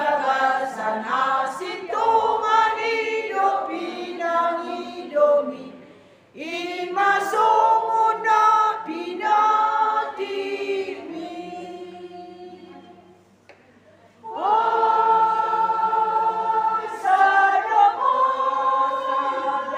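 Women's choir singing a praise hymn unaccompanied, phrase by phrase, with brief pauses about six and fourteen seconds in and long held notes after the second pause.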